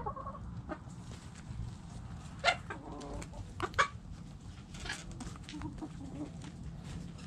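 Backyard chickens clucking softly as they scratch and peck in loose dirt, with many small scratching clicks. There are two louder sharp taps, about two and a half and four seconds in.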